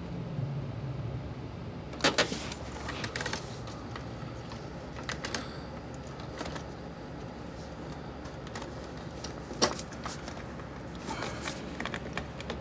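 Scattered plastic clicks and knocks of an engine-bay wiring connector being worked loose by hand, the sharpest a couple of seconds in and again near ten seconds, over a steady low background hum.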